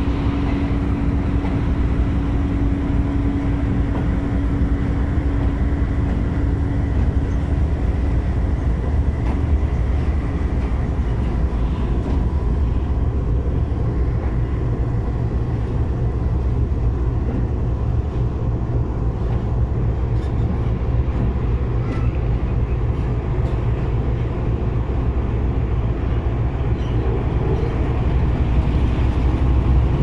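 Passenger train pulling away, heard from an open coach doorway: a steady low rumble of the train running, with a steady hum in the first several seconds that fades out and a few faint clicks about two-thirds of the way through.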